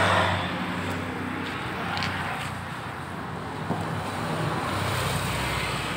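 Steady hum of a motor vehicle's engine running, with road-traffic noise, which swells slightly about four seconds in. A faint click sounds about two seconds in.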